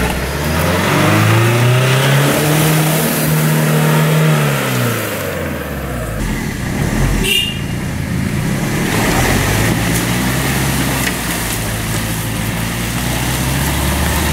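Off-road 4x4's engine revving hard twice: the pitch climbs and holds for a few seconds, drops, then climbs and holds again. A short high-pitched tone sounds about seven seconds in.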